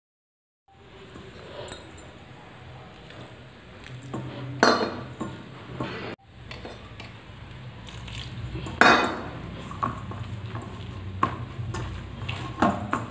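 A hand mixing and kneading crumbly bhatura dough in a stainless steel bowl: fingers scraping and squishing the dough against the metal, with light clinks of the bowl and two louder knocks. The sound starts about a second in.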